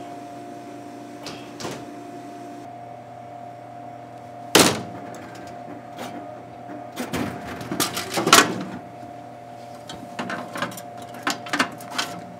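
Coca-Cola soda vending machine humming steadily, with one loud thump, a cluster of knocks a few seconds later and a run of short clacks near the end as a hand pushes into the delivery bin to take out a bottle.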